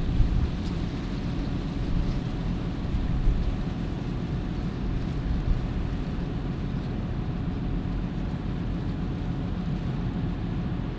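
Heavy farm machinery running steadily: a low engine drone, with a few brief louder bumps in the first half.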